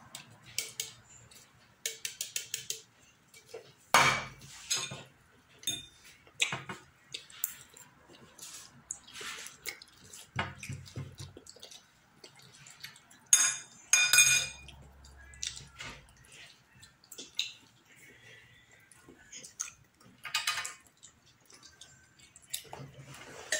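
Intermittent clinks and knocks of tableware on a glass-topped table, mixed with slurping and chewing as a child eats noodles. A quick run of light taps comes about two seconds in.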